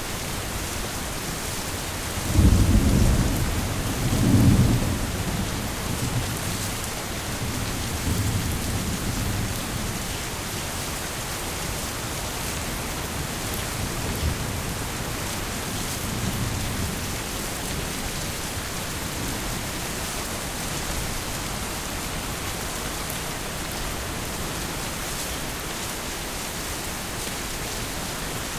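Heavy rain falling steadily with thunder: two loud low rumbles about two and four seconds in, then fainter rolls of thunder that fade back to steady rain.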